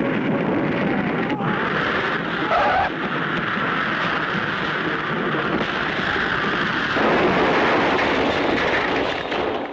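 Sound effect of a light propeller plane's engine droning as it comes in to land, a steady noisy rumble that grows louder and fuller about seven seconds in.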